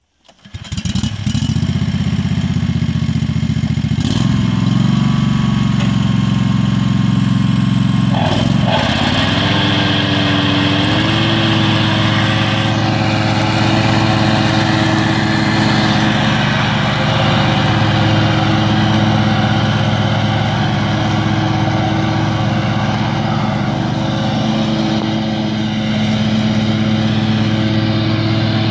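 Exmark Turf Tracer walk-behind mower's Kohler Command engine running loudly, its pitch shifting about four seconds in and again around nine to eleven seconds, then holding a steady note as the mower cuts grass.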